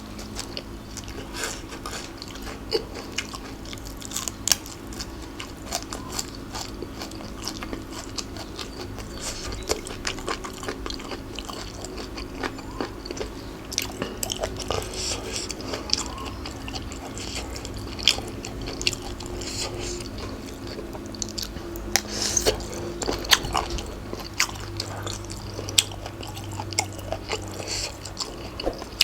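Close-up eating: a person biting and chewing spicy Thai seafood papaya salad with cuttlefish and shrimp, with irregular wet crunches and mouth clicks throughout and a few louder crunchy bites. A steady low hum runs underneath.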